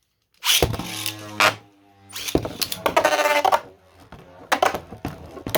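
3D-printed battling tops launched into a plastic stadium: loud whirring launches, then the spinning tops clashing, with several sharp clacks near the end.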